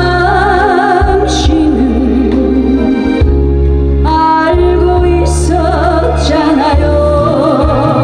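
A woman singing a Korean trot song into a microphone, with wide vibrato on her held notes, over loud amplified accompaniment with a heavy bass.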